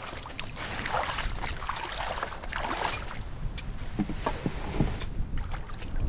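Feet splashing in shallow water and a wooden driftwood pole knocking against aluminium-trimmed canoes as two canoes are rafted together, with scattered sharp knocks over a low wind rumble on the microphone.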